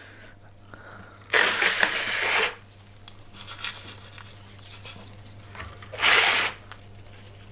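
Pumice stones rattling in and out of a metal scoop as they are scooped up and poured into a plant pot to fill gaps around the roots, twice: once for about a second and once more briefly near the end. A steady low hum runs underneath.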